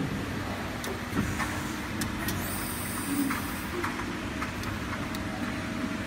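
Steady hum and noise of running factory machinery, with scattered light clicks and a brief high hiss about halfway through.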